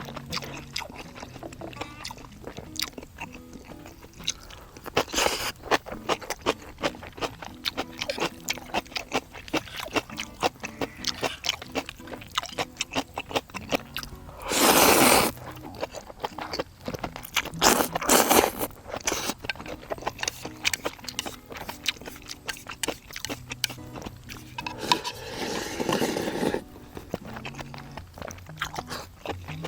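A person eating ramyeon noodles with bracken fern: a steady run of small clicks and crunches of chewing, with louder slurps or bites about halfway, three seconds later, and near the end, over light background music.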